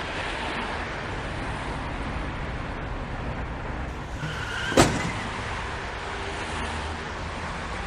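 Steady road-traffic noise, then a short high squeal and a single sharp crash a little under five seconds in: a car collision.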